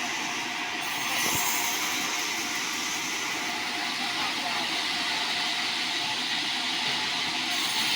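Band sawmill blade cutting lengthwise through a sonokeling (Indian rosewood) log, a steady hissing saw noise that grows a little louder about a second in.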